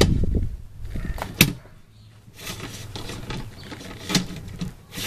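Handling noise from a hand-held camera on a tripod being swung about: a low rumble, rubbing, and a couple of sharp clicks or knocks.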